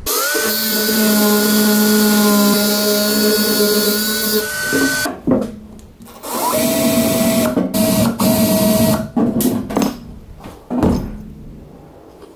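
Cordless drill drilling through the badge fixings on a galvanised steel toolbox. It runs at a steady speed in two runs: the first about four seconds long, the second a few seconds after it. Short clicks and knocks come between and after the runs.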